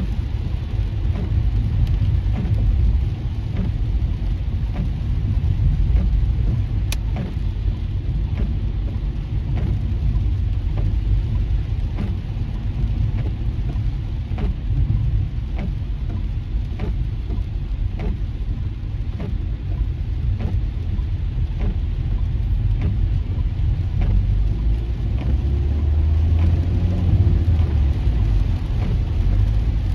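Steady low road and tyre rumble heard from inside a car driving on a wet freeway in heavy rain, with raindrops striking the windshield in irregular light ticks. A single sharp click comes about seven seconds in.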